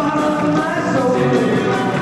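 Live rock and roll band playing a 1950s-style song, with a singer's voice over the band.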